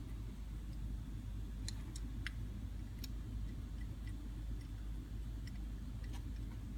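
A few faint, sharp metallic clicks, about a second apart, from a small box-end wrench on the brass fuel inlet fitting of a Rochester 2G carburetor top as the fitting is snugged down. A steady low hum runs underneath.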